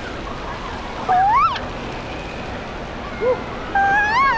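Steady rush of water and crowd din echoing around an indoor water park, with a child's high-pitched shout about a second in and a longer, wavering shout near the end.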